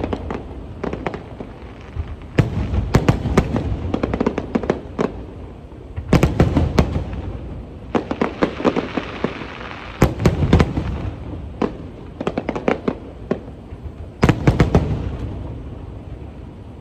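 Aerial fireworks going off in repeated volleys of sharp bangs and crackle. The volleys come in waves every few seconds, with a low rumble between them.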